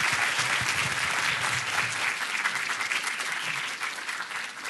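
Audience applauding, the clapping thinning out and fading over the last second or two.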